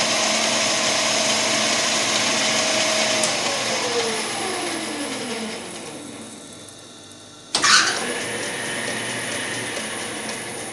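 Smart & Brown model A lathe running steadily, then spinning down with a falling whine and fading over about two seconds. A little over halfway through, a sudden loud burst as it starts up again, after which it runs on more quietly while an M3.5 thread is tapped dry in a free-cutting brass bar.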